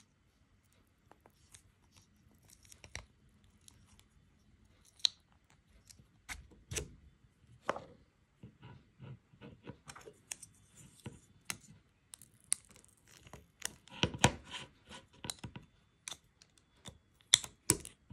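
Small plastic parts being handled and fitted by hand: scattered clicks, taps and scrapes of plastic on plastic, sparse at first and busier and louder in the last few seconds.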